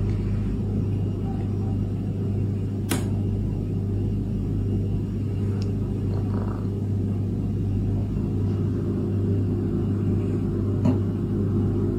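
A steady low hum, with a few light clicks over it.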